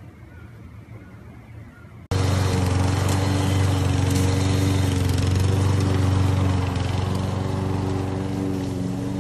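Walk-behind petrol lawn mower engine running steadily under load while mowing grass. It starts suddenly about two seconds in and grows a little fainter near the end.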